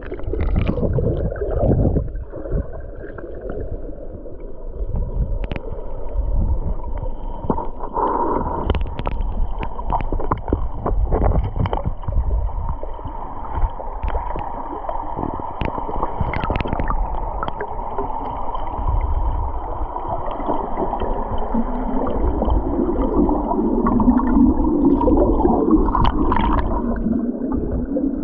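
Muffled underwater sound heard through a submerged camera: creek water churning and gurgling below a waterfall, with scattered knocks and bumps.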